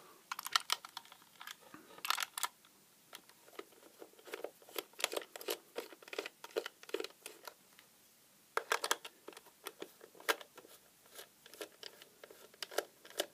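Precision screwdriver undoing small screws in a plastic equipment case: irregular clicks and scratchy ticks of the bit turning in the screws and the case being handled, with denser bursts about two seconds in and again near nine seconds.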